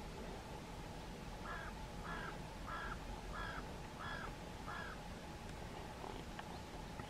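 A crow cawing six times in an even series, about two-thirds of a second apart, over a faint steady background hiss.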